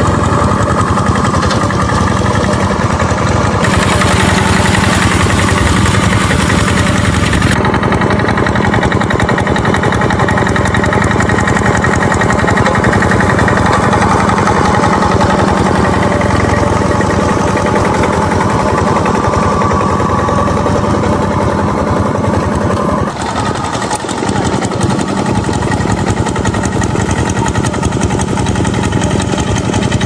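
Two-wheel walking tractors (power tillers) running steadily while their cage wheels churn through a flooded rice paddy. The engine sound shifts abruptly a few times.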